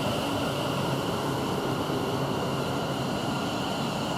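London Northwestern Railway Class 730 electric multiple unit running, a steady hum and noise with a thin high whine.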